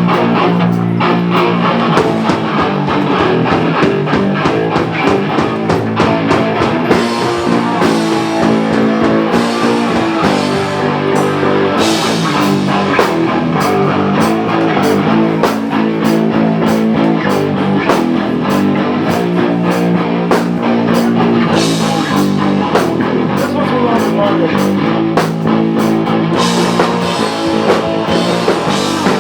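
A live rock band playing loudly: electric guitars and bass over a drum kit, with cymbal crashes and a steady beat.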